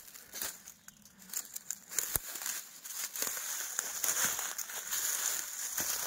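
Footsteps crunching and crackling over loose gravel and forest litter, irregular, with a sharp click about two seconds in; quieter at first, then steadier.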